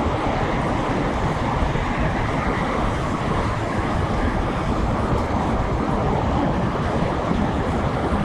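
Steady rushing noise of riding a bicycle at speed through city traffic: wind over the microphone and road rumble, even throughout.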